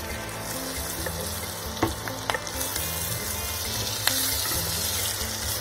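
Pre-fried chicken pieces sizzling as they go into hot oil with onion and capsicum in a non-stick pan and are stirred with a wooden spatula. The sizzle grows after about half a second, with three sharp knocks against the pan.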